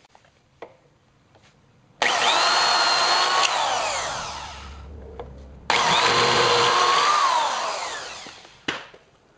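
Electric drill turning a Time-Sert counterbore bit into a stripped bolt hole in a scooter engine case, cutting the seat for a thread insert. It runs in two bursts of about three seconds each, and each time the motor's whine holds steady, then winds down as the trigger is let go.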